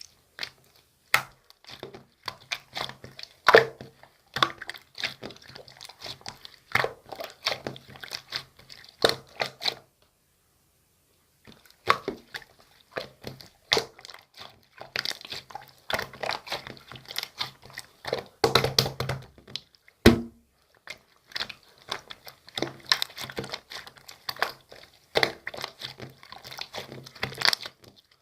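Chewy shaving-foam marbled slime being squished and stretched by hand, making a dense run of sticky clicks and crackles. The sounds pause for about a second and a half near the middle, and one sharper, louder snap comes about two-thirds of the way in.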